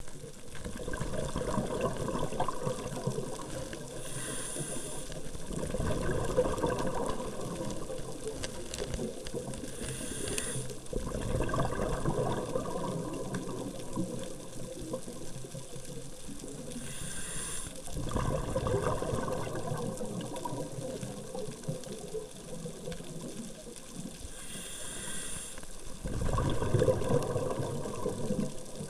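A scuba diver breathing through a regulator, heard underwater: a short hiss of inhalation, then a couple of seconds of bubbling as the exhaled air leaves the regulator, repeating about every six to seven seconds.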